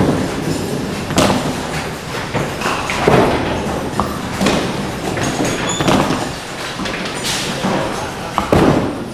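Duckpin bowling: a run of sharp thuds and clatters, roughly one a second, from small balls landing and rolling on the wooden lanes and knocking into pins, over a steady alley rumble.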